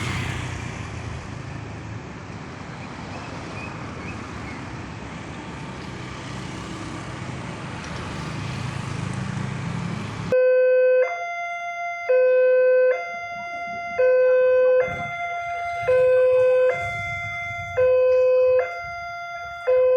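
Traffic noise of the road, then about halfway through an electronic railway level-crossing warning siren starts abruptly. It alternates between two tones, each held about a second, and the lower tone is much louder.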